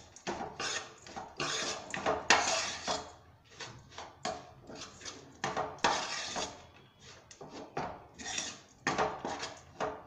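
Metal spoon scraping and knocking against a nonstick frying pan, stirring a dry, crumbly moong dal stuffing as it roasts, in quick irregular strokes.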